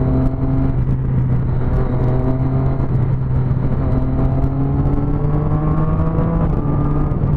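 Motorcycle engine through a loud aftermarket exhaust, running under way with its pitch climbing slowly as it accelerates, then dropping about six and a half seconds in, over low wind rumble.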